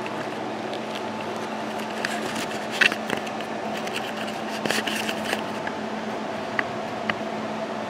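Camera handling noise as a handheld camera is picked up and carried: scattered clicks and rustles, a cluster about three seconds in and another around five seconds, over a steady background hum with a low, even tone.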